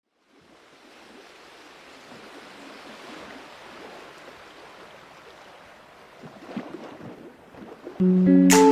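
A soft rushing noise fades in and holds steady, like wind or water ambience. Music comes in with a loud chord about eight seconds in.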